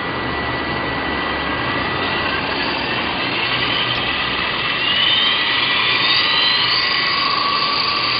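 Walkera LAMA 400 radio-controlled electric helicopter's motors and rotors running with a steady whirr and high whine. About five seconds in, the whine rises in pitch and gets slightly louder as the motors speed up.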